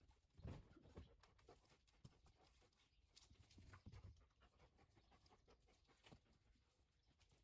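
Near silence, with a few faint soft thumps and light pattering, the clearest about half a second in and again around four seconds in.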